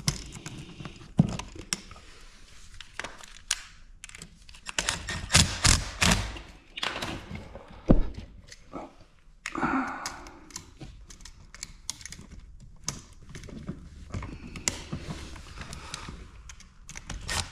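Irregular clicks, knocks and short scrapes of hands and a screwdriver working on a plastic GFCI outlet and its wires: tightening terminal screws and fitting the device into the wall box.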